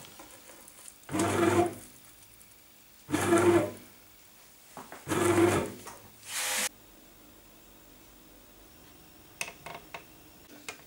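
Bread machine's kneading motor running in short pulses about every two seconds as it mixes dough in the pan, stopping sharply about two-thirds of the way through. A few faint clicks follow.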